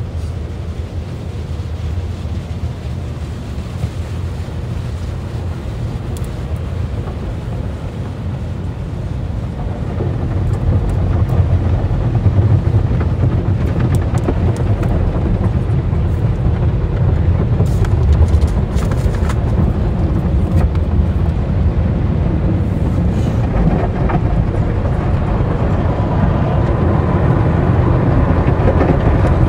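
Automatic tunnel car wash heard from inside the car: water spray and spinning cloth brushes washing over the windshield and body, a steady rushing noise that grows louder about ten seconds in.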